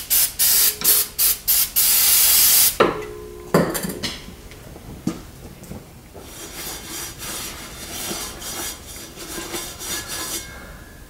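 A quick run of short hisses, then a longer hiss of about a second, and a clunk about three and a half seconds in. After that comes a rag rubbing and scrubbing gunk out of the metal housing of a Ford Treadle-Vac brake booster.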